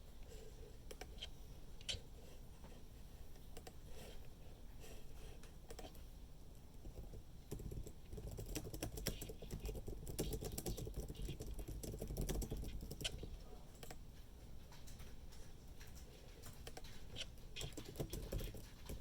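Typing on a computer keyboard: quick, irregular keystroke clicks, with a louder low rumbling stretch in the middle.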